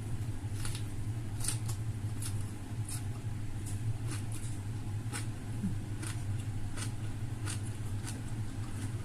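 Close-miked eating sounds: short, crisp mouth clicks and smacks of chewing, irregular, about one every half second, over a steady low hum.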